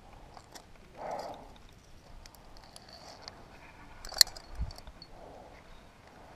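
Climbing hardware clinking: cams and carabiners on a harness gear rack knock together in small sharp clicks, with one loud metallic clink about four seconds in as the climber handles the rack, followed by a dull thump. A climber's breaths swell about a second in and again near the end.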